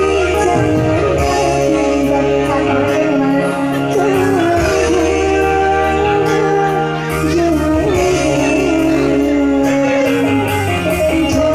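A woman singing into a microphone over an electone (electronic organ keyboard) accompaniment with sustained bass notes, all amplified and loud.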